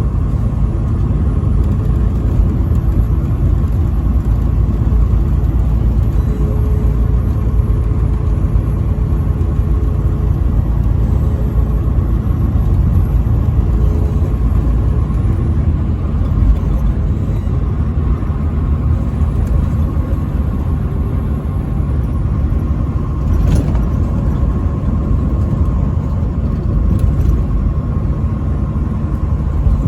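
Vehicle driving on the interstate: a steady low road and engine rumble with a faint steady whine over it. One short click comes about three-quarters of the way through.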